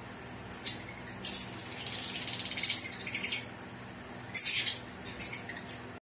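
Lovebirds chirping and chattering: a short high chirp, then a run of rapid twittering lasting about two seconds, then two more short bursts of chirps.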